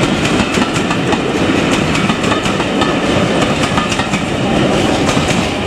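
Passenger coaches of a loco-hauled train rolling past at speed: a steady rumble and rush of wheels on rail, with many sharp wheel clicks over the track.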